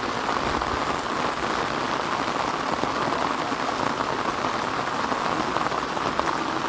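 Pouring rain falling steadily on a flooded road, a dense, even hiss of drops with no let-up.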